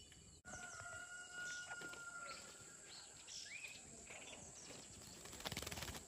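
Faint rural outdoor ambience with distant bird calls: one long held call near the start, a short rising chirp around the middle, and scattered faint high calls. A brief rustling noise comes near the end.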